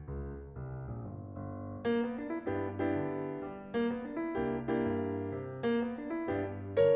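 Background piano music: a gentle melody over sustained bass notes, with a quieter stretch through about the first two seconds.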